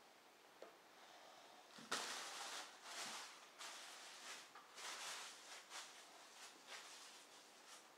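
A toddler's fingers rummaging in a ceramic bowl of noodles: soft, irregular rustling and scraping that starts about two seconds in and thins out near the end.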